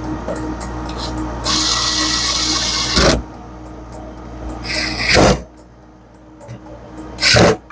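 FBD frozen beverage machine running with a steady hum while its barrels freeze down. About a second and a half in, a loud rushing noise lasts a second and a half and ends in a knock. Two shorter loud noisy bursts follow, about 5 s and 7 s in.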